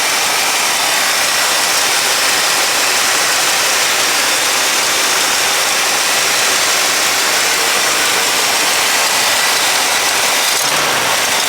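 Pontiac 389 V8 idling cold, heard up close in the engine bay as a steady, loud rush. It carries the puffing of an exhaust leak at the manifold-to-downpipe flange, which the owner puts down to a missing doughnut gasket.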